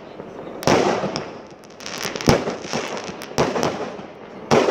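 Aerial fireworks bursting: a run of sharp bangs about a second apart, with crackling between them.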